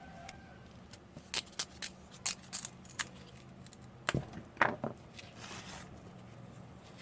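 Hands working small wooden sticks and craft tools at a table: a run of sharp clicks and short scrapes, loudest about four to five seconds in, against quiet room tone.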